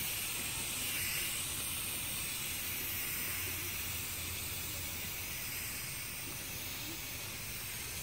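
Aerosol spray-paint can spraying in one long, steady hiss that gets slightly quieter toward the end.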